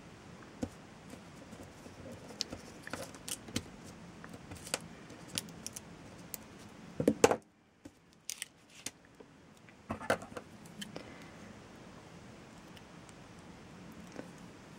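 Handling noises: small clicks and light rattles of hands working with a candle and small rhinestones, with a louder clatter about seven seconds in, followed by a brief moment of near silence.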